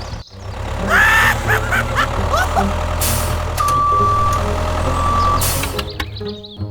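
Vehicle engine running with a steady low rumble, with a single long high beep held for nearly two seconds in the middle and a few short squeaky gliding sounds about a second in.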